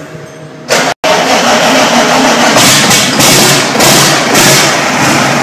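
Bare inline-six four-stroke heavy diesel engine, unmuffled on a test stand, starting suddenly about a second in and then running loud.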